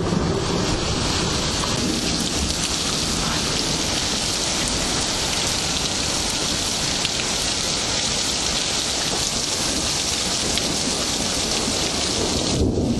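Steady heavy rain falling, an even hiss, with a deeper low rumble coming in near the end.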